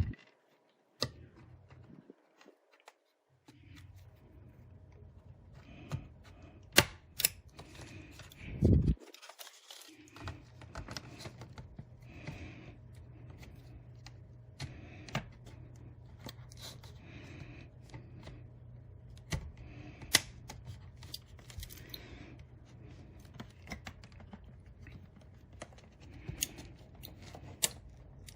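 Irregular sharp clicks and snaps of a plastic drive enclosure being pried open at its clips, over a low steady hum.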